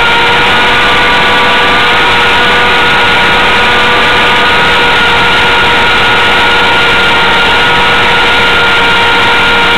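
Align T-Rex 450 Sport electric RC helicopter running: a loud, steady whine from the motor and drive gears over a rushing noise from the rotors, its pitch wavering slightly.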